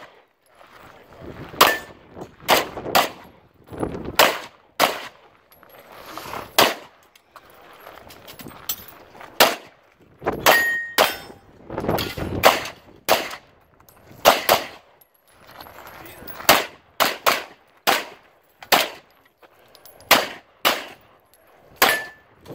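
Handgun fired through a practical-shooting stage: about twenty shots, many in quick pairs about half a second apart, with pauses of a second or two between groups as the shooter moves to new targets. A short ringing tone follows a few of the shots.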